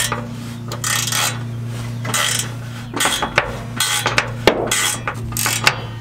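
Ratchet wrench tightening the clamp bolt on an exhaust tip: several short rasping ratchet strokes in quick, irregular runs.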